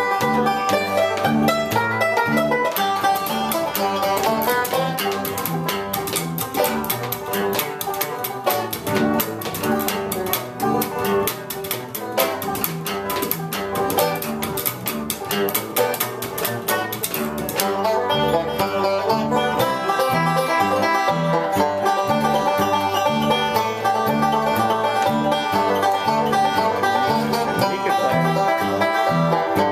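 Banjo and upright bass playing an instrumental bluegrass-style tune: fast picked banjo notes over a plucked bass line moving back and forth between notes. The banjo's dense picking thins out a little past halfway.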